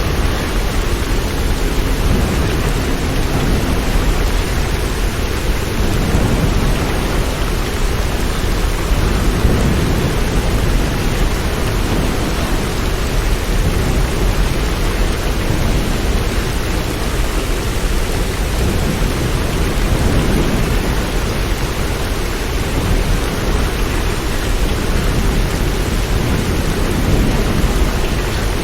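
Steady rain, a dense even hiss heavy in the low end, swelling and easing slightly in slow waves.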